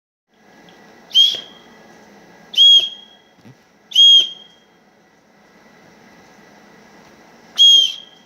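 Fire alarm sounding short, high, whistle-like beeps: three about a second and a half apart, then a fourth after a longer pause.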